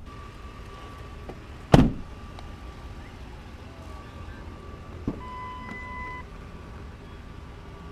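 A 2008 Ford F-150 pickup's door slammed shut, one loud thud about two seconds in. A few seconds later there is a softer click of a door latch as the rear door is opened, followed by a steady tone about a second long.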